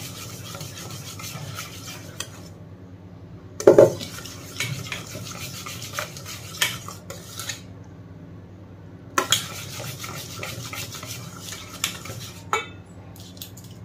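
Wire whisk beating a thin flour-and-water batter in a stainless steel bowl: quick clicking and scraping of the wires against the metal, with a couple of short pauses and one louder clank about four seconds in.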